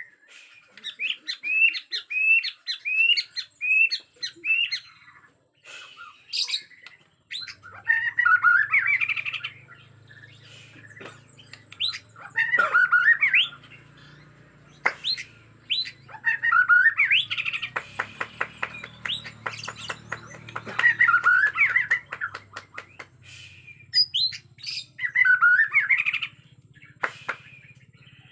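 Bornean white-rumped shama (murai batu) singing in agitation: first a run of about eight rising chirps, then loud, varied whistled phrases with a fast clicking rattle in the middle.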